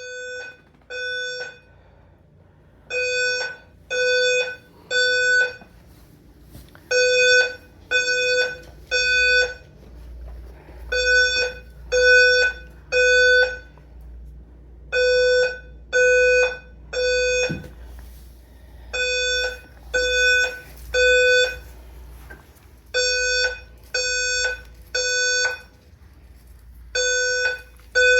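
Fire alarm sounding in a temporal-three evacuation pattern: three beeps of about half a second each, then a pause of about a second and a half, the group repeating every four seconds.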